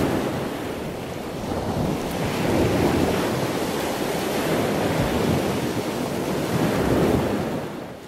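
Sea waves surging and washing in, swelling and easing in a steady rush, fading out near the end.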